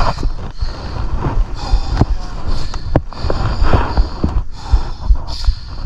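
KTM dirt bike being ridden over rough, wooded ground, heard from on the bike: the engine runs under frequent knocks and thuds from the terrain, with the rider's heavy breathing.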